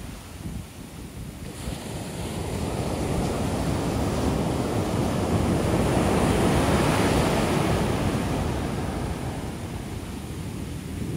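Ocean shore break: the surf swells to a crash about halfway through as a wave breaks on the beach, then the wash of foam fades.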